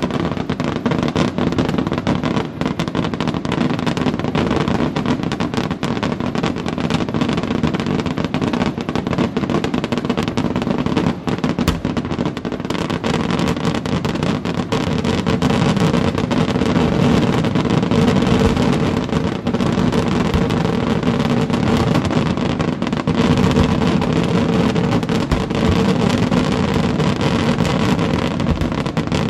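A dense barrage of aerial firework shells bursting in rapid succession. The reports run together into a continuous rumble with crackle, a little louder from about halfway through.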